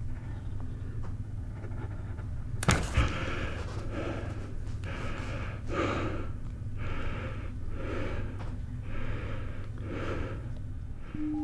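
A man breathing hard, with gasping breaths about once a second, out of breath from push-ups. About three seconds in, a double thud as his body drops flat onto the floor.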